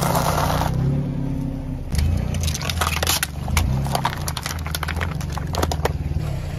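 A car tyre rolling over and crushing pretzels, then plastic cups of soda: a dense crunching hiss for the first moment, then scattered sharp cracks and crackles of plastic splitting and crumpling, over a steady low hum.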